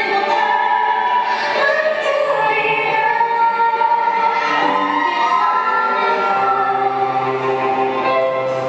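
Music with a sung vocal melody, the voice holding long notes that bend slightly in pitch.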